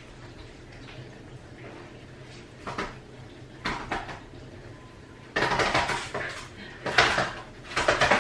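Scuffling and clattering on a wood-effect floor as a person and a dog move about under a dining table. A few light knocks come first, then a louder burst of scuffling with sharp knocks from about five seconds in.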